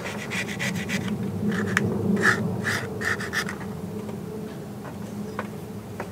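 Scraping and rubbing as caked grass and grime are cleared by hand off the blades of a cylinder lawnmower, with several sharper scratchy strokes in the middle.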